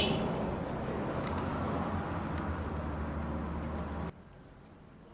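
Small electric pump or blower running with a steady hum and hiss while solder is cleared from a phone board's charging-port holes. It starts with a click and cuts off suddenly about four seconds in.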